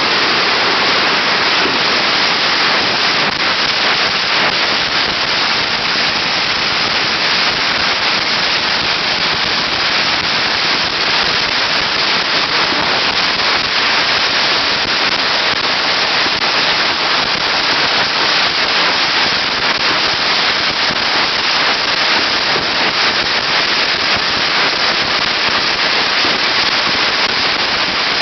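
Strings of firecrackers going off without a break: a dense crackle of rapid, overlapping pops at a steady loudness.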